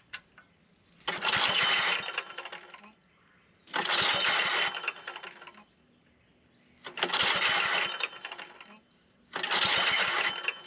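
Small gas engine of a plate compactor being pull-started four times, each pull a sudden burst of about a second that fades out without the engine catching and running.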